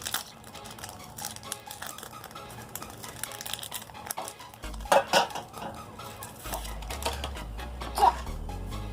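Rustling and small clicks as a foil Pokémon booster pack is handled and opened, with a few sharper knocks about five seconds in and again near the end.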